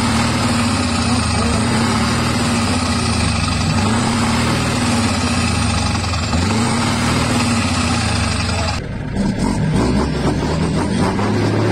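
Scania truck engine running loud and steady at its side exhaust outlet while the exhaust noise is measured with a sound level meter. After a cut about nine seconds in, a different vehicle's engine runs with an evenly pulsing exhaust from chrome side pipes.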